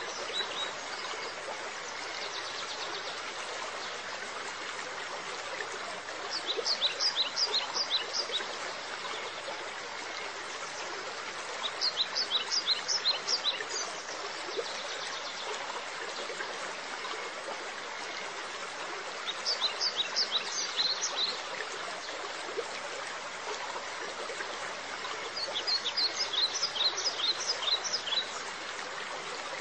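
Steady trickling, running water, with a songbird singing four times: each a phrase of rapid high chirps lasting about two seconds, roughly every six seconds.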